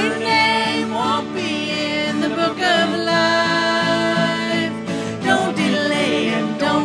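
Country-style gospel song playing, with a singing voice over acoustic guitar.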